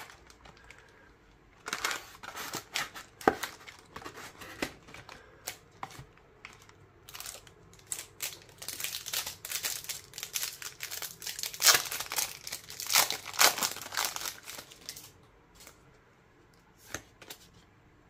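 Foil wrapper of a Pokémon TCG Brilliant Stars booster pack being crinkled and torn open by hand: irregular crackling and tearing, loudest and densest in the middle, thinning to a few light clicks near the end.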